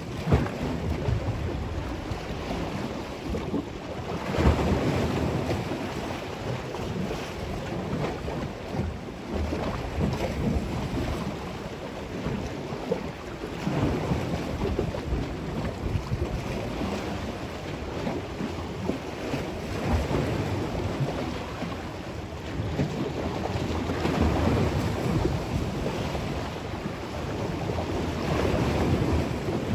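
Choppy lake waves splashing and lapping, with wind buffeting the microphone. The sound swells and falls in irregular surges every few seconds.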